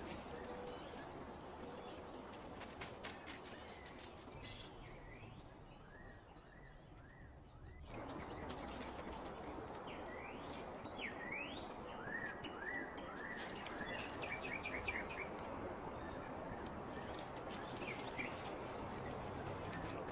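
Forest birds chirping and calling: repeated short chirps and quick upward-sweeping whistles over a steady background hiss. The hiss fades for a moment and cuts back in abruptly a little before halfway.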